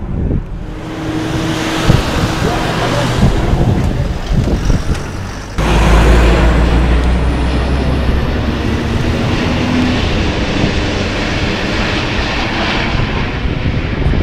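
Jet noise of an Airbus A380-841's four Rolls-Royce Trent 900 turbofans as the airliner passes low overhead: a loud, rushing rumble with a faint engine tone in it. About five and a half seconds in it jumps suddenly louder, with a much deeper rumble that holds to the end.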